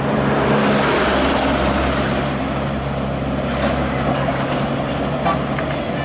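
Road traffic: buses and trucks passing with a steady engine drone and tyre noise, a little louder in the first two seconds.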